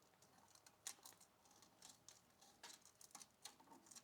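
Faint, scattered scratches and small clicks of a folded strip of emery cloth rubbing on small electrical contacts, heard over near silence.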